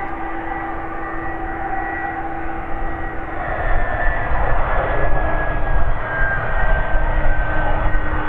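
Boeing 767's twin turbofan engines running at taxi power: a steady whine over a low rumble, growing louder about three and a half seconds in as the airliner passes close, the whine's pitch sliding slightly lower as it goes by.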